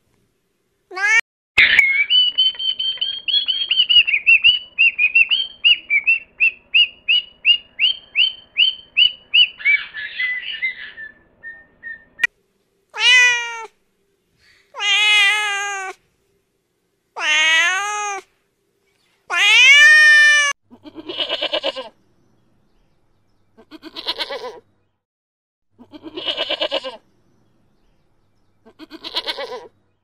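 Domestic cats meowing. First comes a long run of short, high calls repeated about twice a second, fading out. Then four longer meows that rise and fall in pitch, followed by four shorter, wavering calls.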